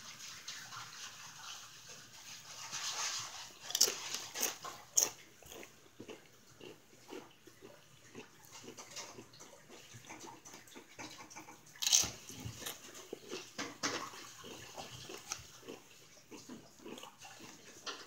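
Close-up chewing and mouth smacking of someone eating a banana: a steady run of small wet clicks, with a few louder sharp clicks scattered through.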